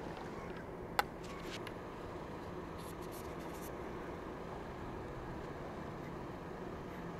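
Steady engine drone with a sharp click about a second in, followed by a few fainter clicks.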